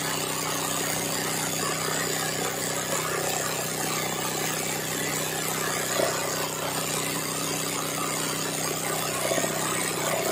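Sewing machine running at a steady speed, its needle stitching free-motion embroidery through the fabric, with an even hum that does not change.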